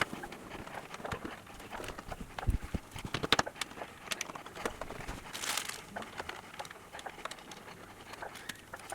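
Irregular light clicks and knocks of small hard parts being handled, with a brief rustle about five and a half seconds in.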